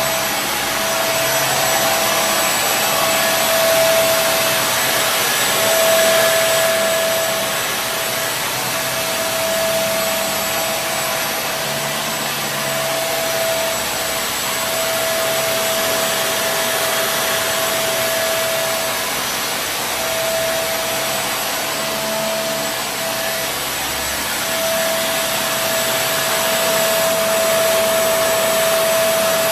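Kenmore Intuition direct-drive bagless upright vacuum cleaner running steadily. Its motor's high whine cuts out briefly every few seconds over a constant rush of air.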